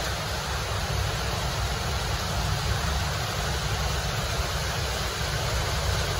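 Steady, even background noise with a low rumble and no distinct events.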